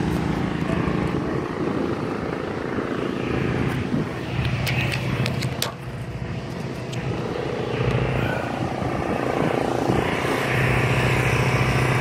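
An engine running steadily, a low drone with a constant pitch that grows louder over the last couple of seconds; a few sharp clicks come about five seconds in.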